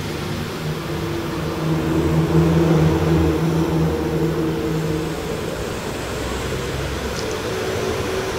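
Steady low motor hum, made of several steady pitches, that grows louder for a few seconds around the middle and then settles back.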